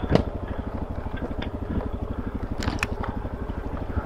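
Suzuki DRZ400S single-cylinder engine putting along at low revs in gear as the bike rolls downhill on a rough dirt trail. There are a few sharp knocks and rattles from the bike over ruts, a cluster of them just before three seconds in.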